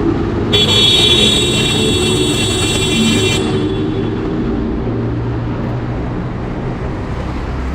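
Motorcycle engine running while riding, with road and traffic noise. A loud, high-pitched tone sounds for about three seconds near the start, then stops.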